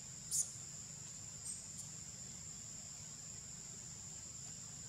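Steady high-pitched drone of forest insects chirring. A short sharp high chirp stands out about half a second in, the loudest sound, with a fainter one about a second and a half in.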